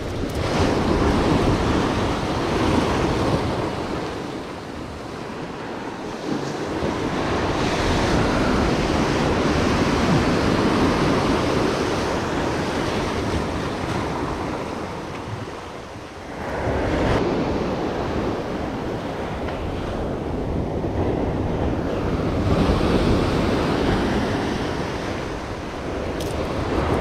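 Ocean surf breaking and washing up over sand and rocks, surging and easing several times, with wind buffeting the microphone.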